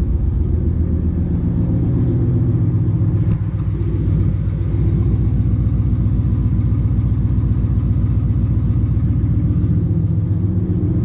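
Ram 1500 pickup engine idling steadily through catless Doug Thorley long-tube headers, a low, even exhaust rumble with no revving.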